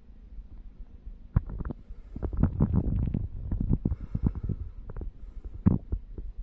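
Close, muffled rubbing and rustling with irregular low knocks: fingers scratching a cat's fur right by the microphone.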